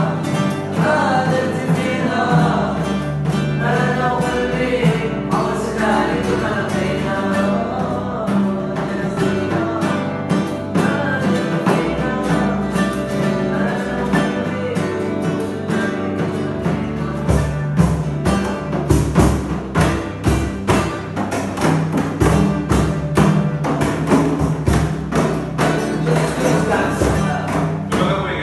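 Acoustic guitars strummed with hand-drum accompaniment and voices singing together. The singing stands out in the first dozen seconds; from about seventeen seconds in, quick sharp drum strokes come to the fore.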